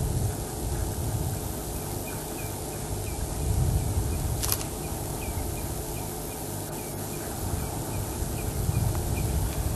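Steady outdoor ambience with a low rumble of wind on the microphone, over which a small bird or insect gives a long series of short, high chirps, about two a second. A single sharp click sounds about halfway through.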